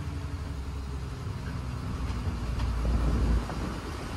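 Lorry engine running under way, heard from inside the cab as a low rumble that builds up and then falls back suddenly about three and a half seconds in.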